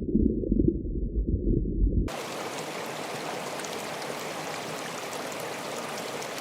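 A loud, muffled low sound that cuts off abruptly about two seconds in, followed by a steady, even rushing hiss like running water, with faint ticks in it.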